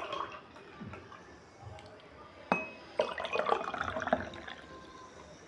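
Fizzy orange soda (Fanta) poured from a plastic bottle into glass tumblers, glugging and fizzing as the glasses fill. There is a single sharp clink about halfway through, and the pouring grows louder a moment later.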